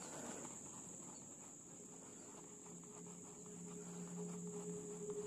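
Steady high-pitched buzzing of insects. From about halfway, a low held drone of background music fades in and grows louder.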